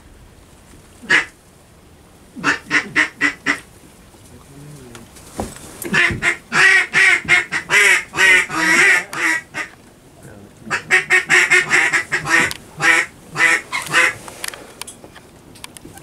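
Mallard-style duck calls blown in runs of loud quacks: a single note, a short string, then two long fast sequences calling to ducks flying overhead.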